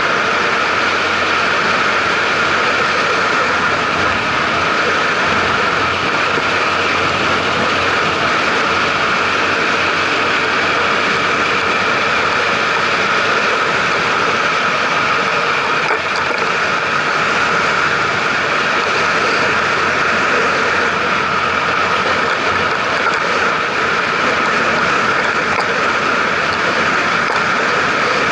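Steady rush of wind and road noise from a vehicle cruising along a highway, picked up by a camera mounted on the moving vehicle. The level stays even throughout, with no revving.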